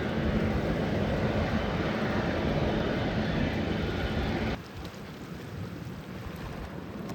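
Boeing 777-300ER's GE90 jet engines running, a steady rumble with a faint low hum. About four and a half seconds in it drops off abruptly to quieter wind noise.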